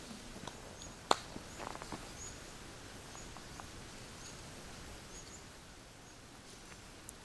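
A small bird repeating short, high chirps, roughly one every half second to second. A sharp click about a second in, the loudest sound, followed by a few lighter clicks.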